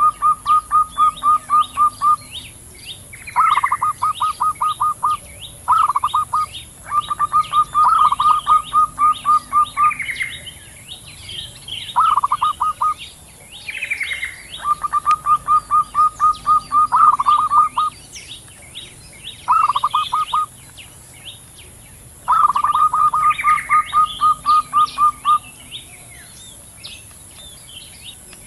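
Zebra doves calling back and forth: repeated bouts of quick staccato coos, about ten notes a second, each bout lasting one to three seconds with short pauses between. Smaller birds chirp higher above them over a steady high-pitched hum.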